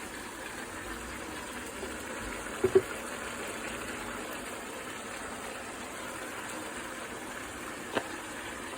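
Chicken curry simmering in a pot, a steady bubbling hiss. Two quick short tones sound nearly three seconds in, and a single click comes near the end.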